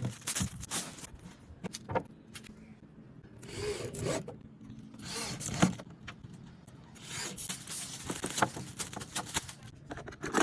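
Protective plastic film being peeled off a polycarbonate canopy sheet: several rasping, crackling pulls with pauses between.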